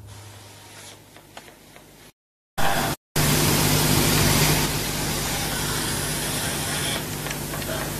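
Sound-system line noise: a faint hiss, then the feed drops to dead silence twice in quick succession, about two and three seconds in, before a loud steady hiss with a low hum takes over.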